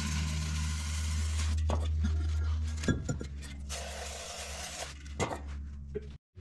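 Aerosol cleaner hissing in two sprays into a trailer brake drum's wheel-bearing hub to flush it clean, the first about a second and a half long and the second about a second, with a couple of sharp knocks between and after. A steady low hum runs underneath.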